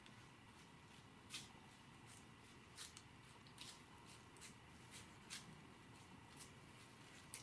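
Faint, irregular crunches of a whitetail deer's hooves stepping through dry fallen leaves, about eight steps spaced roughly a second apart.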